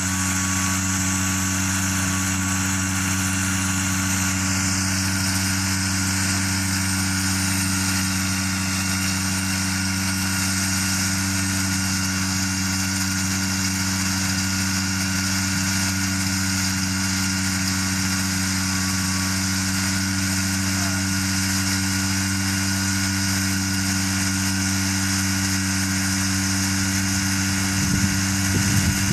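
Powered parachute trike's engine idling steadily with its pusher propeller turning. Near the end the sound grows a little louder and rougher.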